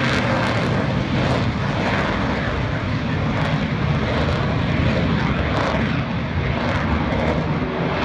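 Lockheed Martin F-35 Lightning II fighter jet in flight, its single Pratt & Whitney F135 turbofan giving a steady jet roar.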